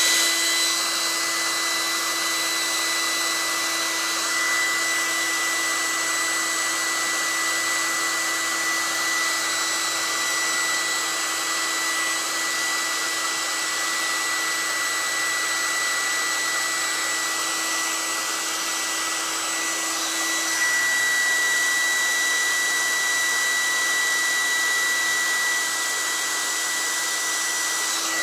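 Handheld hair dryer running steadily, a rush of air with a high whine, blowing on fresh paint to dry it.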